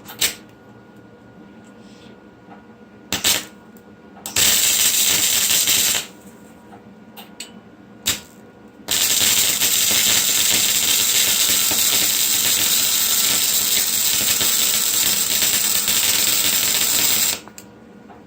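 Vulcan welder's arc crackling and hissing as it lays a bead on a turbo Miata's exhaust downpipe. A few brief strikes come first, then a burst of about a second and a half some four seconds in, and from about nine seconds in a steady run of about eight seconds before it cuts off.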